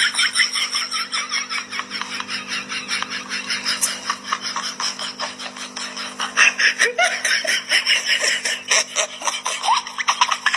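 Continuous rapid laughter, pulsing several times a second, over a faint steady hum.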